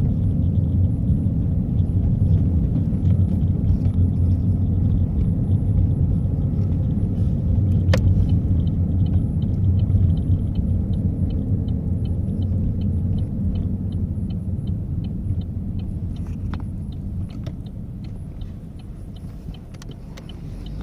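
Car driving with a steady low rumble of engine and road noise in the cabin, which fades over the last few seconds as the car slows. Through the middle comes a faint, even ticking of about two to three ticks a second, with a single sharp click a little before it.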